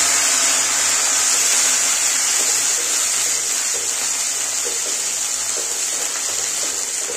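Spinach paste sizzling in hot oil just after going into the pan, a steady hiss that eases off slightly near the end, stirred with a metal spatula.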